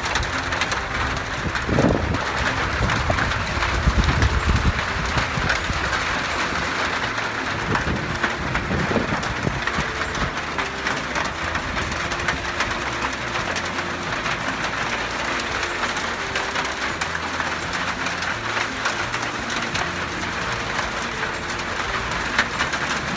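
Steady rain falling: an even, dense hiss with fine ticks of drops throughout, and a few low thumps in the first few seconds.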